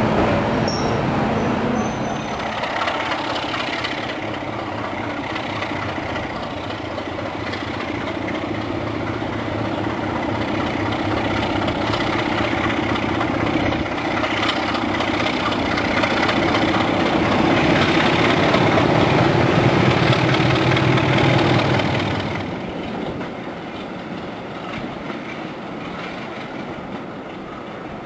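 Diesel locomotive engine running as a train of coaches rolls past, with wheel and rail noise. The engine note builds steadily, is loudest a few seconds before the end, then falls away quickly about three-quarters of the way through.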